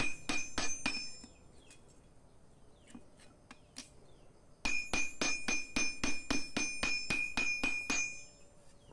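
Hand hammer striking a forged steel knife blade laid on a flat iron anvil block, each blow a sharp metallic clank with a ringing tone. A short run of about five blows is followed by a pause, then from about halfway a faster run of about four blows a second. The even blows flatten and straighten the blade in the final forging pass.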